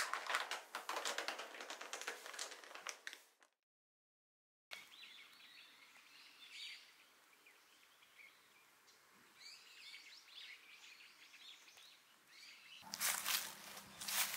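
Small birds chirping faintly outdoors, between louder stretches of dense crackling and rustling at the start and near the end, with about a second of dead silence after the first stretch.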